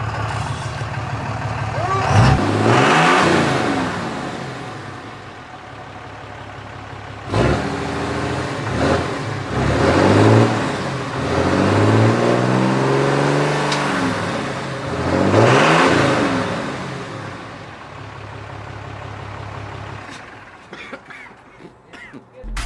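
Motor vehicle engines accelerating and driving past, the engine pitch sweeping up and down, loudest about three seconds in and again near sixteen seconds.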